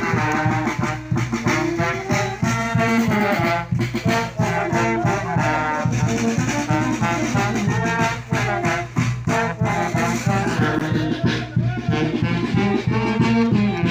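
Live brass band, with saxophones among the brass, playing a lively festival dance tune with a steady beat.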